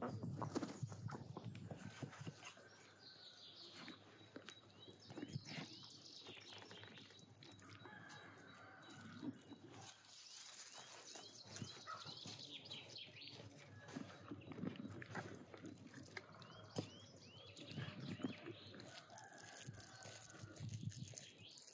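Small birds chirping in repeated short series over a quiet village yard. At the very start a duck splashes and flaps its wings in a muddy puddle.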